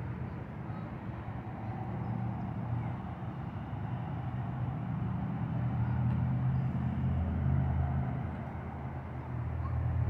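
Low rumble of distant road traffic, swelling gradually for several seconds and easing slightly near the end.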